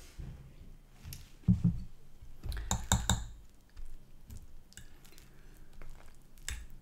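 Close-up eating sounds: chewing and mouth noises with sharp clicks of a fork against a plate, a cluster of clicks about three seconds in.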